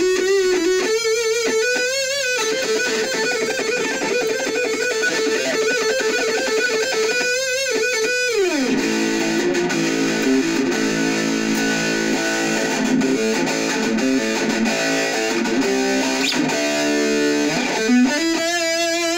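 Distorted electric guitar, a Jackson KVXMG with active pickups, played through a Black Truck distortion pedal into an Orange Micro Dark hybrid tube amp and PPC108 speaker cab, with noise gate and mid cut on. Held lead notes shaken with vibrato give way about eight seconds in to a slide down, then lower riffing, and a slide back up to a held note near the end.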